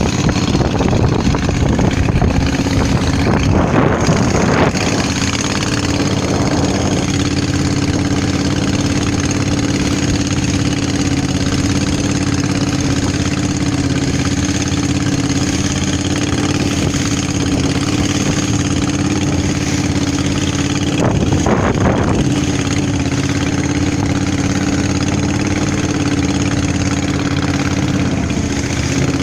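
Boat engine running steadily at a constant speed, with a rush of louder noise during the first few seconds and again about two-thirds of the way through.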